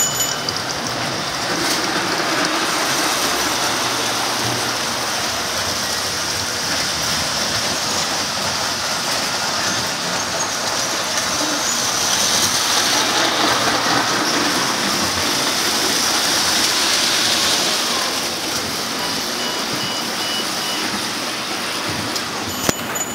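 Toy electric trains running on metal track: a steady rolling rumble and whirr of many wheels and motors, a little louder for a few seconds past the middle.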